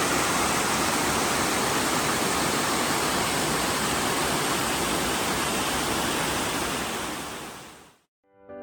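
Small waterfall cascading over layered shale, a steady rush of falling water that fades out near the end.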